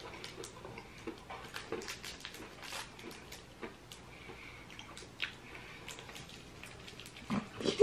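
A small wrapped sherbet candy being handled and picked open by fingers: scattered wrapper crinkles and ticks, irregular throughout.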